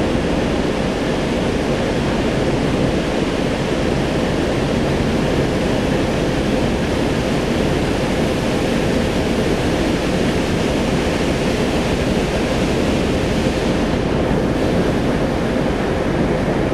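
TEP70 diesel locomotive's engine running steadily: a loud, even rumble with a faint steady hum.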